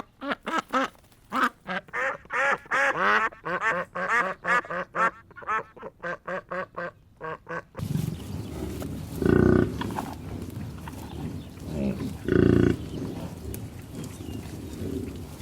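Ducks quacking in a rapid run of short calls, about three or four a second. Then, against a steady noisy background, come two loud, deep farm-animal calls about three seconds apart.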